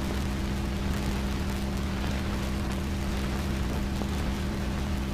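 A steady low hum with a few overtones, held at one pitch over the even hiss of an old film soundtrack.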